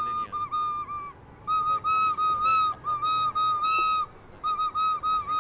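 Recorder played by someone who has never played an instrument: a string of short, shrill notes held almost on one pitch, with brief pauses about a second in and near four seconds.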